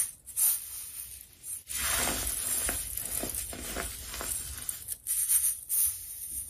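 Compacted baking soda chunks crunching and crumbling as a hand squeezes them against a metal wire-mesh sieve. There are sharp crackles near the start, then a steadier gritty crunching from about two seconds in.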